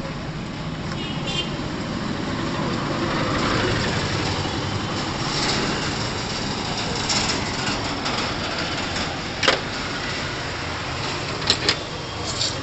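Steady road traffic rumbling past, swelling about three to four seconds in and easing off again. A few sharp knocks near the end, the loudest moments, from work at the stall's counter.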